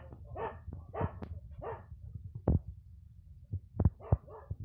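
Dog eating rice from a tin bowl: a run of short wet chewing and smacking sounds, then a few sharp clicks from the middle on.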